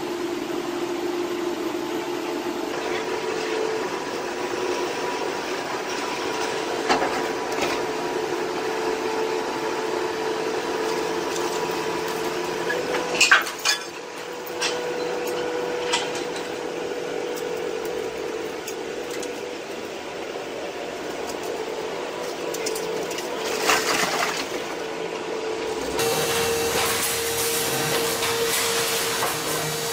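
Hydraulic scrap-metal baler running with a steady pump whine. A short burst of loud metal clanks and bangs comes a little before halfway. Near the end the sound switches abruptly to a different steady machine hum.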